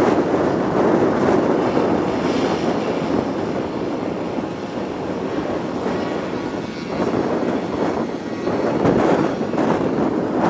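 Massey Ferguson 6465 tractor's diesel engine running under load, powering a JF Westmac FCT 850 trailed forage harvester as it chops grass and blows it into a trailer towed by a second tractor alongside. Steady mechanical rumble, with gusting wind on the microphone.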